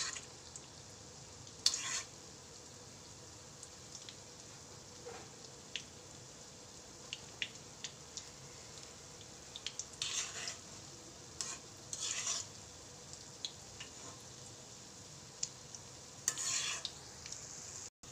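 Gulab jamun dough balls deep-frying in ghee in an iron kadhai: a steady soft sizzle, with a spatula scraping and clinking against the pan now and then, about two seconds in, around ten and twelve seconds, and near the end.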